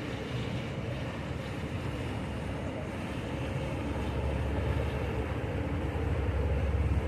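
Large motor yacht's engines running with a steady low rumble, getting louder in the second half as the yacht comes abeam.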